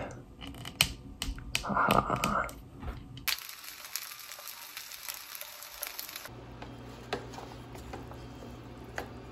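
Clicks and handling knocks, then dumplings sizzling as they fry in a nonstick pan for about three seconds. Near the end, chopsticks stir instant noodles in a paper bowl with faint clicks over a low steady hum.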